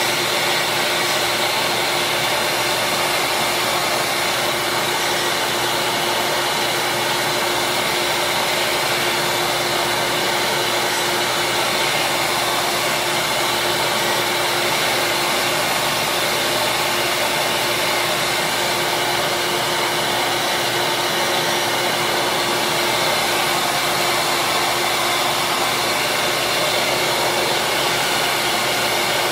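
Small benchtop disc sander running steadily, a constant motor whirr with a steady hum, while small plastic slider pieces are held against its sandpaper to shape them.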